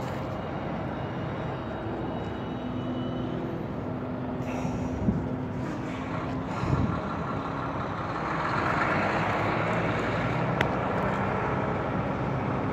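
Truck engine running steadily, getting louder as it drives past about two-thirds of the way in, with a couple of short thumps.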